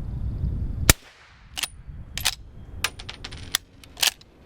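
A single suppressed shot from a GForce LVR357 lever-action rifle fitted with a Rugged Obsidian 9 suppressor, about a second in, a sharp crack. It is followed by a series of shorter sharp metallic clicks and clacks as the lever is worked.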